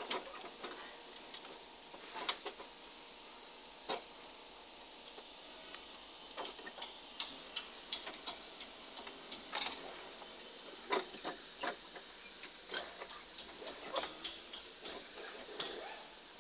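Irregular clicks and light knocks of plastic and metal parts being handled in a car's engine bay during radiator removal, over a steady hiss. The clicks come more often in the second half.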